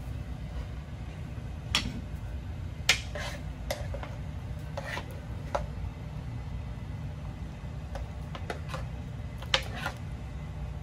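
Metal ladle and tongs clinking against a skillet as sauce is spooned out: a scattered handful of short, sharp clinks over a steady low hum.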